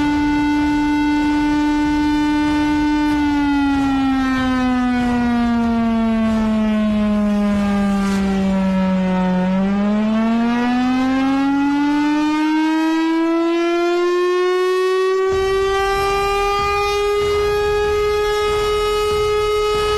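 Air-raid siren wailing. It holds a steady tone, falls slowly in pitch for about six seconds, then rises again and holds at a higher pitch.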